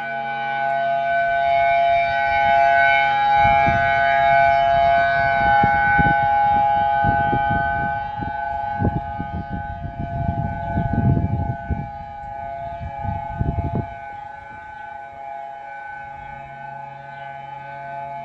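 Oahu's civil defense attack-warning siren sounding a held, steady tone. This is the first monthly test of Hawaii's new missile attack warning signal. Irregular low rumbling noise comes and goes under it from about three seconds in until about fourteen seconds.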